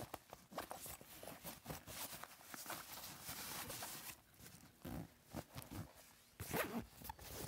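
Fabric camera bag being handled and zipped: rustling and a zipper pulled along a pouch, with scattered knocks of gear against the bag.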